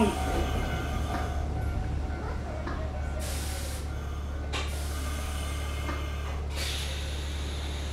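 Mizuma Railway 1000-series electric train slowing to a stop at a station platform, heard from inside the car: a steady low hum that eases off as it stops, with a few short hisses of air from the brakes.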